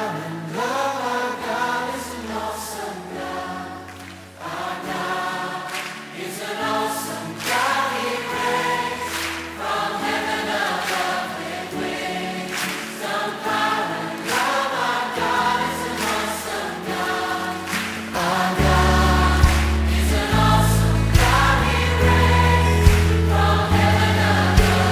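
Choir singing a Christian worship song over sustained low accompaniment; about three quarters of the way through, a louder deep bass line and drum beat come in.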